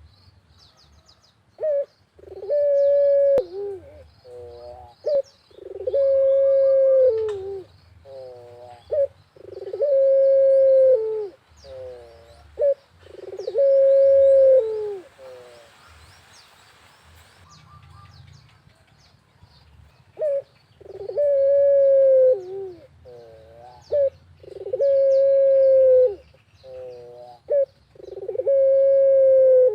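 Barbary dove (puter) cooing: long held coos, each trailed by a quick run of shorter notes, repeating about every four seconds with a pause midway. Faint high chirping of small birds underneath.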